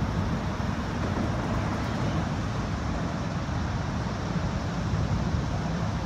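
Steady traffic rumble from the Interstate 95 overpass above the skatepark.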